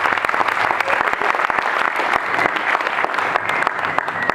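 Applause: dense, steady clapping from many hands. A thin, steady high tone comes in near the end.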